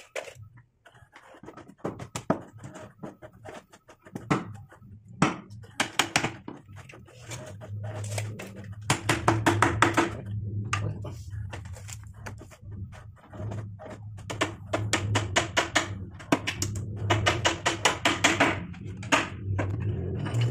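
Hammer striking a wooden frame: scattered knocks, then quick runs of rapid taps about halfway through and again near the end, over a low steady rumble.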